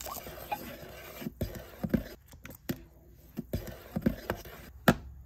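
Irregular small clicks, scrapes and knocks of plastic being handled: a sealed plastic vial being peeled open and emptied into a toy cauldron, then a plastic wand stirring in the cauldron's liquid and knocking against it.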